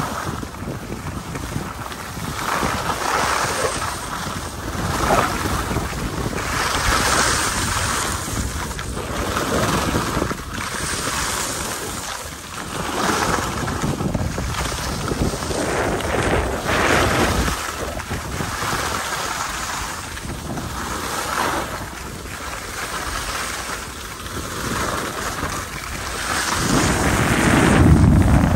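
Wind rushing over the microphone while sliding downhill, with the hiss and scrape of edges carving packed snow, swelling and fading every two to three seconds with each turn. A heavier wind buffet comes near the end.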